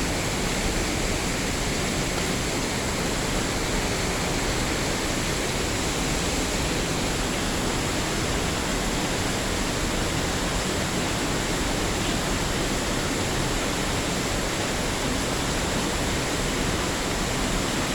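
Waterfall water rushing: a steady, even noise that does not change.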